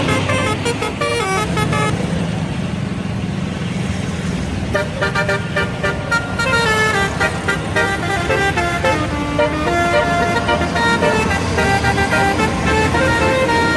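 Indonesian bus 'telolet' horn, a set of trumpet horns playing a quick tune of stepped notes, starting about four or five seconds in and carrying on to the end, over the bus's engine running.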